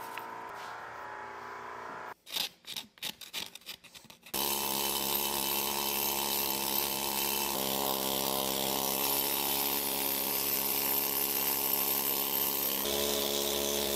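A few short, broken bursts, then from about four seconds in a needle scaler running steadily, a continuous buzzing rattle as its needles chip old paint and rust off the cast-iron frame of the power hammer.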